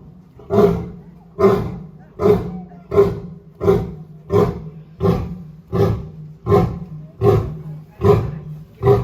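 An Asiatic lion's roaring bout in its grunting phase: a regular series of short, deep grunts, a little more than one a second, each dying away before the next.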